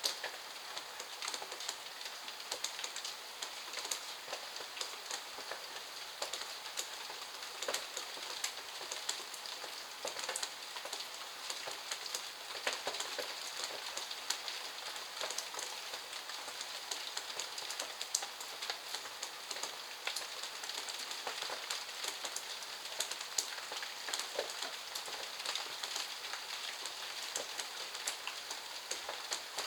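Steady rain falling, an even hiss with many close individual drops tapping through it.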